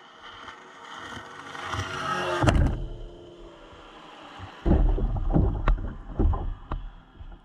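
Tohatsu 30 outboard on an Addictor 190 mini-boat running at full throttle, growing louder as it approaches and passing close by about two and a half seconds in. About two seconds later its wake reaches the floating camera with several heavy splashes and knocks.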